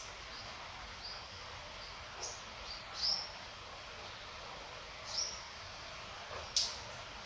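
Steady hiss of gentle rain, with a bird giving several short, falling chirps. The loudest comes about three seconds in and near the end.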